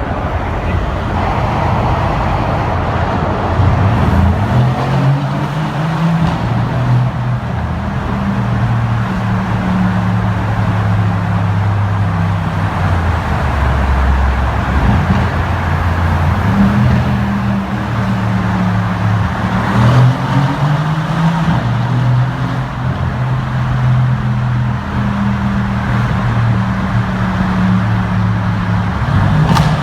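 2015 Mercedes-AMG C63's 4.0-litre twin-turbo V8 accelerating hard: its note climbs in pitch and drops back at each gear change, several times over.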